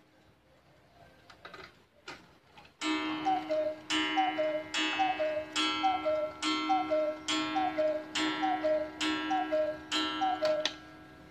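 Three-weight, eight-day German cuckoo clock striking the hour after a few quiet seconds with faint clicks: about nine two-note cuckoo calls, high then lower, one a little under a second apart, each with a ringing strike beneath it.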